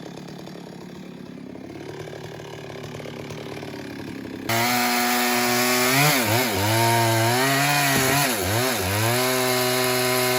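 Stihl MS 382 two-stroke chainsaw running quietly at first, then about halfway through suddenly at full throttle and cutting wood, its engine note dipping and recovering several times as the chain bites under load.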